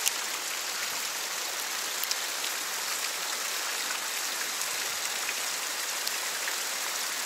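Steady hiss of rain falling, mixed with a shallow stream running fast over bedrock, with a few light ticks.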